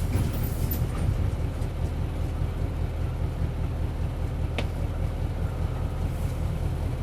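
Isuzu 8PE1-S V8 diesel of an Isuzu Cubic city bus, running steadily as a low, even hum heard inside the bus. A single brief click comes about four and a half seconds in.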